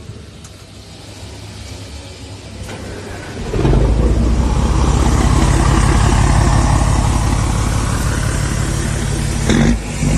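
Scania 112 truck's straight-six diesel on a straight-through exhaust, building up, then running with a loud deep rumble from about three and a half seconds in. The rumble dips briefly near the end and comes straight back.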